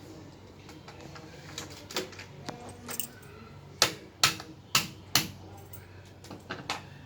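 UPVC pipes and fittings knocking and clacking together as they are handled and fitted: scattered sharp knocks, with four louder ones in quick succession about halfway through.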